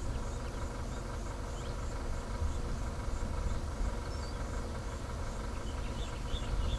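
Vehicle engine idling steadily, with insects chirping faintly and regularly, about three chirps a second.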